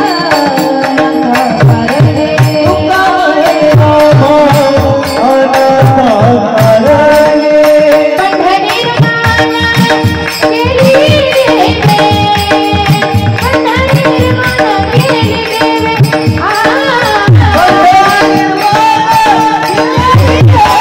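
Women singing a Marathi devotional song to hand-drum accompaniment with steady drum strokes, over a held drone tone.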